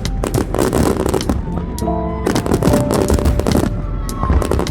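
Fireworks bursting and crackling in rapid, irregular bangs, with music playing along with them.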